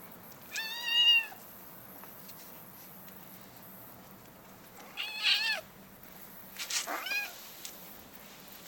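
Kitten meowing three times, each a short arching call, a few seconds apart.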